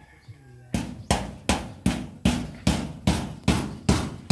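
Steady hammering: sharp, evenly spaced hammer blows, about two and a half a second, starting just under a second in.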